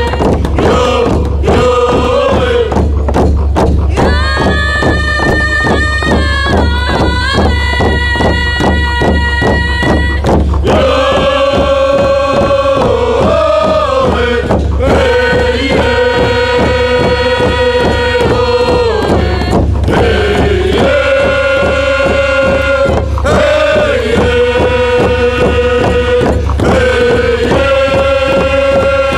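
Background music: chanting voices holding long notes, gliding between pitches, over a steady drum beat.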